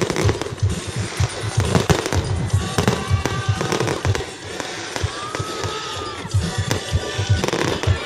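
Aerial firework shells going off in rapid succession: a dense run of low thuds and bangs, several a second, over a crackling hiss from glittering gold bursts.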